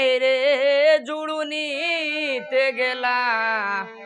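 A man singing a Bengali ojha folk song, long held notes that waver and bend in pitch, over harmonium accompaniment. The singing starts abruptly, loudest in the first second.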